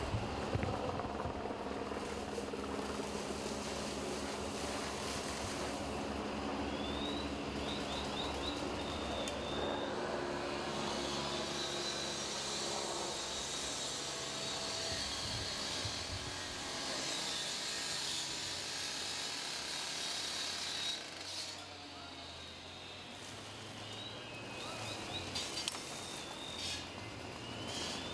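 A steady engine drone with a hiss over it, and a few short high chirps partway through and again near the end.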